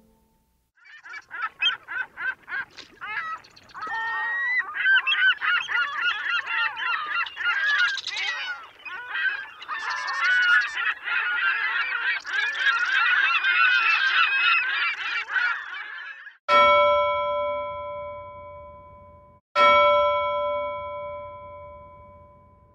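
A flock of geese honking, many calls overlapping. Near the end a bell is struck twice, about three seconds apart, each stroke ringing out and fading.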